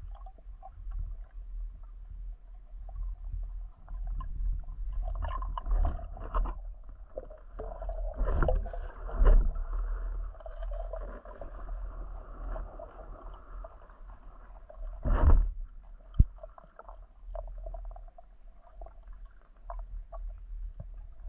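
Muffled underwater water noise during a spearfishing dive: a steady low rumble of moving water, broken by several louder gurgling surges about five, eight to nine and fifteen seconds in, and a single sharp click shortly after the last.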